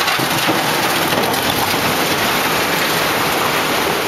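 A dump truck's load of broken concrete rubble sliding out of the tipped bed and tumbling onto the pile: a steady, dense clatter of chunks and grit.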